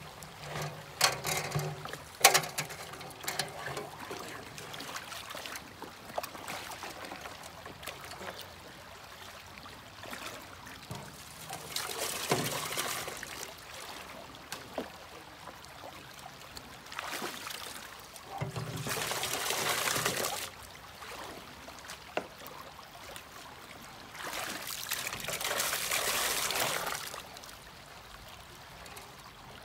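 Water poured from a gold pan down an upright Keene aluminium sluice box into a plastic bucket, three pours of a couple of seconds each, rinsing the gold-bearing concentrates off the sluice. A few sharp knocks near the start as the metal sluice is set into the bucket.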